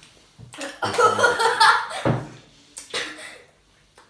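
Children's vocal reactions while sucking extreme sour candy: a loud breathy outburst from about half a second to two seconds in, ending in a falling sound, then a shorter one about three seconds in.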